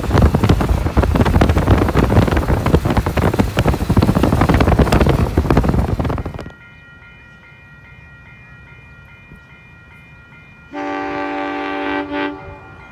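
Heavy wind buffeting and road noise on the microphone of a moving car, cutting off sharply about six and a half seconds in to a much quieter trackside background. Near the end an approaching train sounds a loud multi-tone horn for about a second and a half, with a brief extra blip just after.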